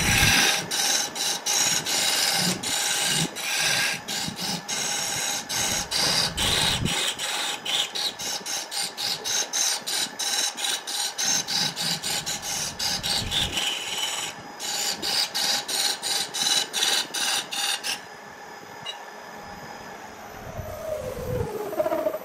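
Electric wood lathe running with a steady hum while a wad of wood shavings is pressed against the spinning workpiece to burnish it. The shavings rasp in quick rhythmic strokes, about two or three a second, and stop about eighteen seconds in. Near the end the motor's hum slides down in pitch as the lathe spins down.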